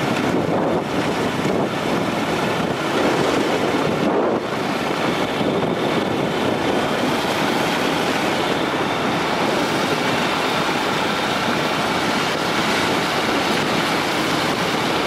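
Steady wind rushing over the microphone of a camera carried on a moving motorcycle, with the motorcycle's running noise beneath it on a dirt road.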